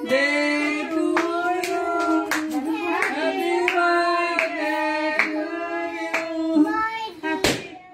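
A small group singing together while clapping along in a steady beat, about two or three claps a second. The singing and clapping stop just before the end, after one loud clap.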